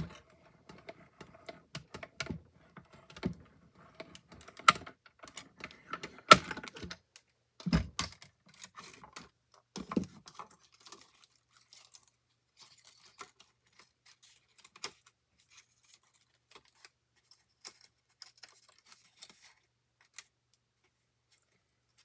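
Clicks and knocks from a small manual die-cutting machine as the die sandwich is run through it and taken back out, the loudest knock about eight seconds in. After that come fainter scattered taps and ticks of handling the cut paper and die.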